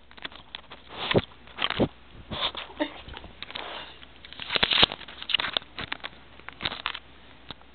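Boston terrier licking and sniffing right at the microphone: an irregular string of wet smacks, clicks and rustles that thins out near the end.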